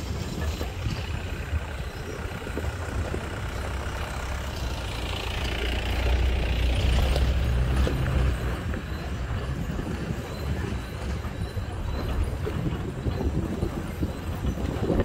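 Vehicle driving along a dirt track: steady low rumble of engine and tyres heard from on board, growing louder for a couple of seconds about six seconds in.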